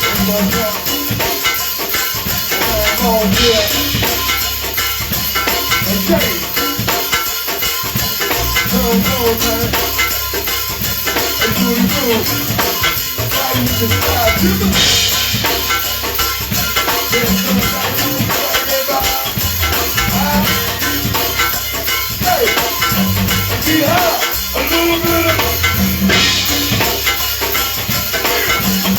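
Live band playing an instrumental passage with a steady beat, bass and shaker-type percussion, with a crash-like accent roughly every eleven seconds.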